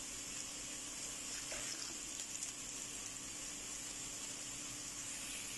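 Chopped onions frying in oil in a pot, a steady gentle sizzle, with a faint steady low hum underneath.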